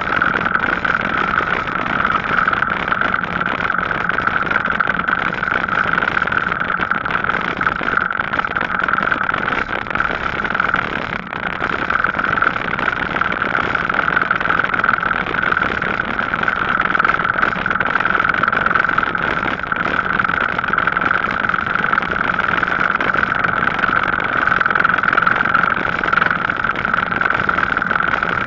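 Steady riding noise from a Gazelle Paris C7 e-bike rolling along a paved cycle path: even tyre and wind noise with a constant high hum.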